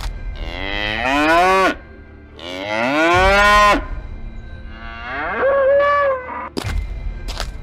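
Cow mooing three times, each a long call that rises and then falls in pitch, followed by a few thuds near the end.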